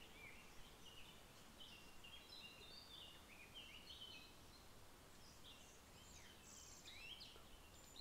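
Faint woodland birdsong: many short chirps and whistled notes, with a few quick falling notes near the end, over a soft steady background hiss.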